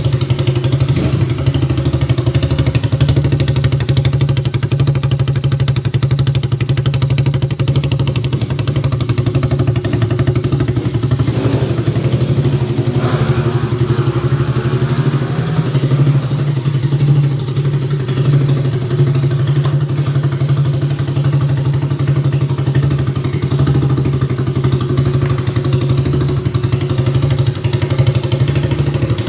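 ATV engine running through a stainless-steel exhaust, idling steadily with a brief rise in pitch around the middle.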